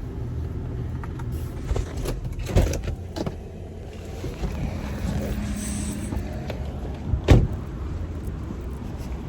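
Steady low hum of a car's air conditioning and idling engine, heard from inside the cabin, with a few knocks and thumps; the loudest comes about seven seconds in.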